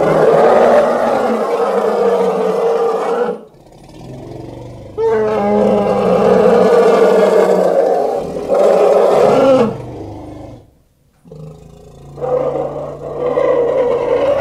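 African elephants calling: three long, loud, pitched calls, each lasting a few seconds, with short gaps between them.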